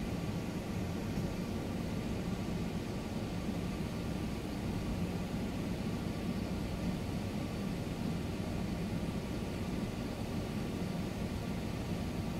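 A vehicle driving at a steady pace: an even engine and road rumble with no revving or change in pace.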